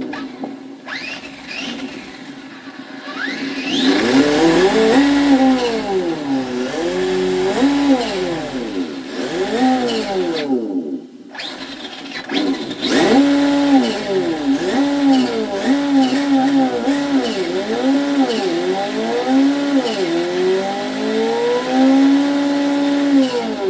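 Engine sound-effect unit on an MJX 1/8-scale RC rally car, playing a simulated engine that revs up and falls back again and again with the throttle, holding steady in between. It cuts out briefly about halfway through.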